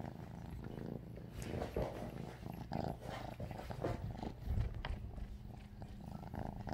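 Red point Siamese kittens purring steadily, with scattered light clicks and knocks as they nose and paw at a plastic treat puzzle feeder.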